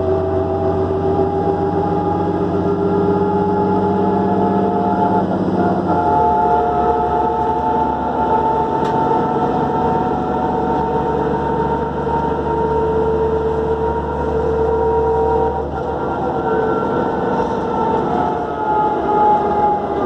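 Inside a New Flyer D40LF diesel transit bus under way: the engine runs with a high turbocharger whine, several steady tones that slowly rise and fall in pitch. The low engine note drops in pitch about six seconds in.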